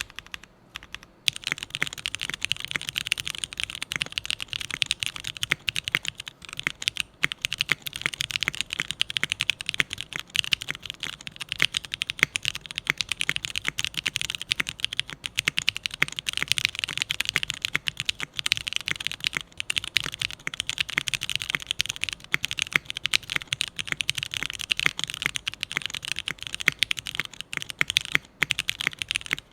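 Fast, continuous typing on a Kalam Kohaku mechanical keyboard with Black Cherry Quinn franken switches (Cherry MX Black housings with lubed Gateron Quinn stems) and SP DCS keycaps on a stock aluminium plate with no foam. After a brief pause just after the start, the keystrokes come densely and without a break.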